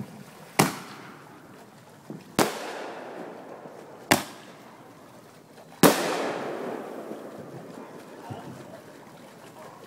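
Aerial fireworks bursting overhead: four sharp bangs in a row, about two seconds apart. The last is the loudest and trails off over a couple of seconds.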